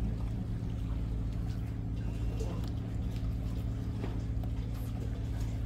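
Low, steady drone of a boat's engine idling, holding one even pitch throughout.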